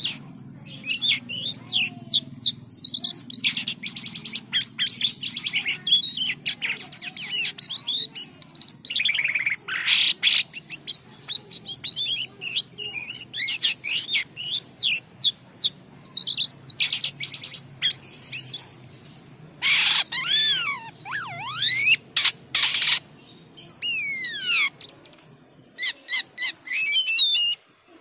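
A caged jalak kapas (sripapon) songbird singing almost without a break: a long, varied run of whistles, rapid chattering trills and sweeping notes that slide up and down in pitch, with only short pauses.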